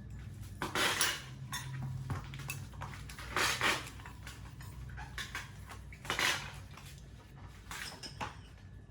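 Metal objects clattering and clinking in about five short rattles, the loudest about a second in and about three and a half seconds in, over a low steady hum.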